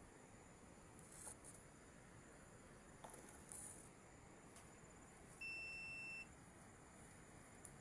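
Near silence with a few faint rustles, then about five seconds in a single steady, high-pitched beep-like tone lasting just under a second, which cuts off sharply.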